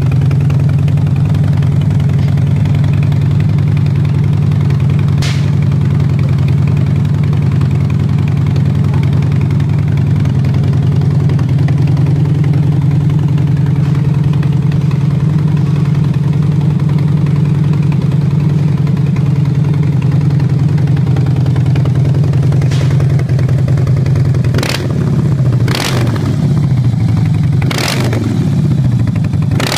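2012 Harley-Davidson Dyna Fat Bob's air-cooled V-twin, breathing through aftermarket Akrapovic exhausts, idling steadily. In the last several seconds it is blipped on the throttle a few times, each rev rising quickly and dropping back to idle.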